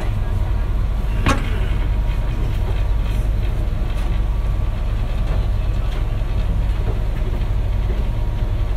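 Boat engine running with a steady low rumble under the deck, with a single knock about a second in.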